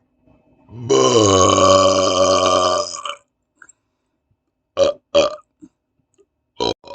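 A man's long, deep burp lasting about two seconds, dropping in pitch at its start and then held steady. A couple of seconds later come three brief burps, two close together and one near the end.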